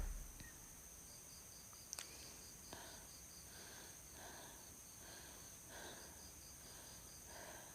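Faint high-pitched insect chirping, a rapid steady pulse of about five chirps a second, with a single soft click about two seconds in.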